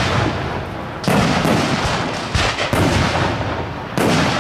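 Aerial firework shells bursting: a series of sharp bangs, roughly one a second, each followed by a long echoing rumble that fades away.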